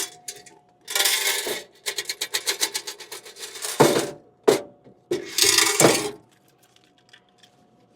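Coins clinking and jingling as change is counted out by hand, with a run of quick clicks in the middle and louder clatters near the start and about five seconds in.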